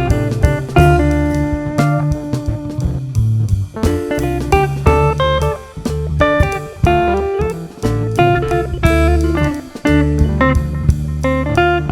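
Background music: guitar with bass and drums, playing a steady, laid-back tune.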